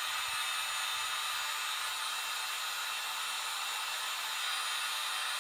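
Heat gun blowing a steady rush of hot air, shrinking heat-shrink tubing onto a USB cable.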